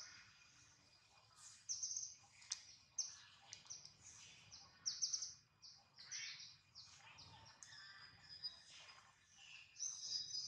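Many short, high-pitched animal chirps and squeaks in quick succession, with a few sharp clicks and a faint steady high whine underneath.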